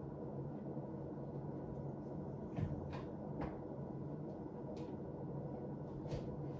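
A handful of brief knocks and clatters from a kitchen cupboard, its door and the items inside, as someone rummages through it, over a steady low hum.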